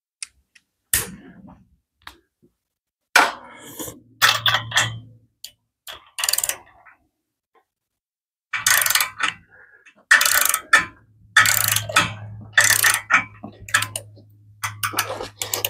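A ratchet and spark plug socket clicking and scraping in irregular bursts as a spark plug is turned into the cylinder head of a Briggs & Stratton OHV engine. The plug turns tight, which the mechanic takes for a cross-threaded plug. A low steady hum runs underneath in the second half.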